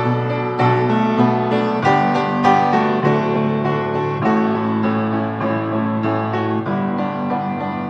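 Piano playing a slow hymn accompaniment without singing, sustained chords changing about once a second.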